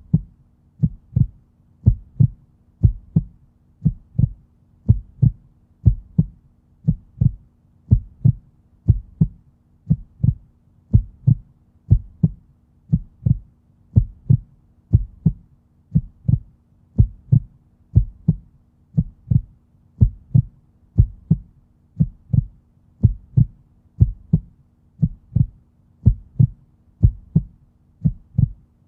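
A heartbeat, slow and even at about one beat a second, each beat a low double thump, over a faint steady hum.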